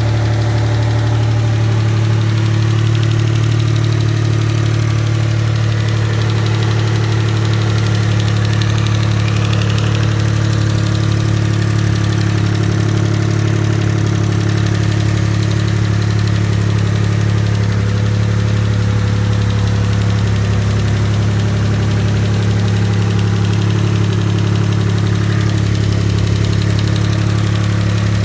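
Mitsubishi GTO twin-turbo 3.0-litre V6 idling steadily with a constant lifter tick. The tick comes from the hydraulic lifters, which were later replaced.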